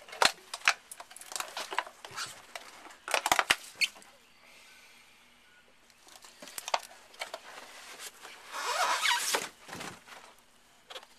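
Handling noise from an arrow tipped with a mechanical broadhead: a run of sharp clicks and knocks, a few more clicks after a pause, and a burst of rustling about nine seconds in.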